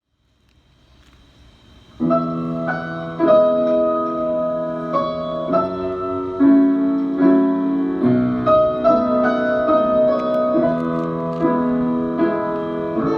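Piano playing chords and a melody line, beginning suddenly about two seconds in after a faint low hiss.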